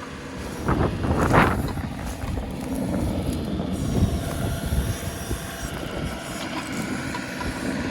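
John Deere 2038R compact tractor's three-cylinder diesel running steadily, powering the 270B backhoe as it works. A brief rush of noise comes about a second in.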